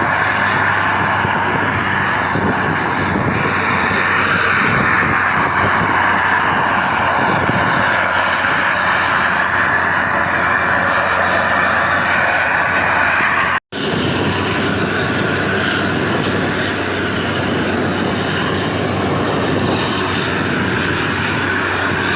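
Steady drone of a vehicle on the move, engine and road noise blended together. It cuts out for an instant about two-thirds of the way through, then carries on unchanged.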